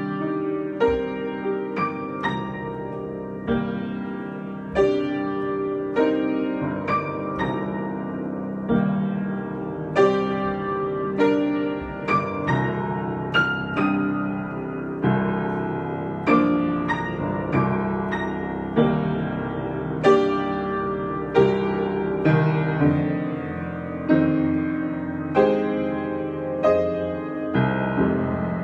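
Solo piano improvising: chords and single notes struck about once a second and left to ring and fade, a slow, free-flowing passage.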